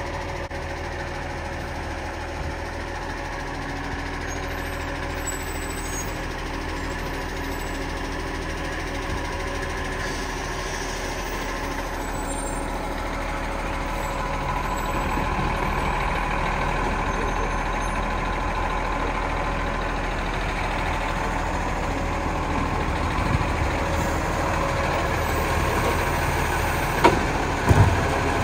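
Iveco side-loader garbage truck's diesel engine running steadily as the truck moves along the street, getting louder about halfway through. Near the end come two sharp knocks as its mechanical arm takes hold of a wheelie bin.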